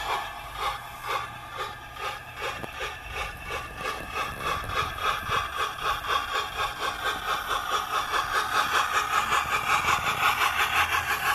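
DCC sound decoder in an O gauge Gresley A3 model steam locomotive giving steam exhaust beats as it pulls away; the beats quicken and grow louder as the engine gathers speed, reaching about five a second near the end.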